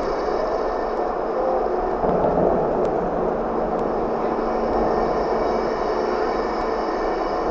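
The rotating dome of the 4-meter Blanco telescope turning, a steady mechanical rumble with a low hum, swelling slightly about two seconds in.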